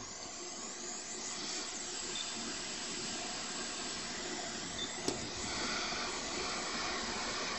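Hot air rework station blowing a steady hiss over a laptop motherboard, heating the solder to lift off a shorted MOSFET. A single sharp click about five seconds in.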